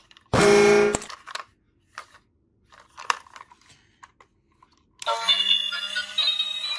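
Battery-operated Lightning McQueen toy car: a short loud burst of sound near the start, a few small plastic clicks as it is handled and switched on, then about five seconds in its electronic music starts playing with a steady low hum under it.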